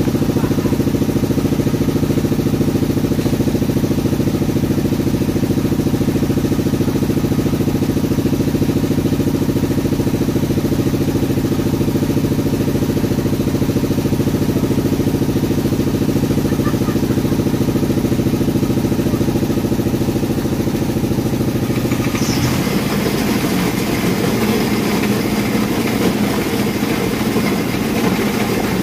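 A motor running steadily with a low, even hum; about two-thirds of the way through its note breaks into a rougher, noisier sound.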